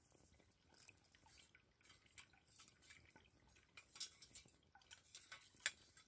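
Near silence with a few faint, scattered clicks and ticks, the sharpest one near the end: wooden sticks knocking against a small folding metal camp stove as it is handled.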